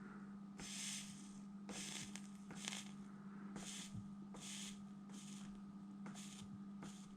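Soldering iron dabbing flux-coated chip pins: short faint sizzles, about eight in a row, as the solder reflows, over a steady low hum.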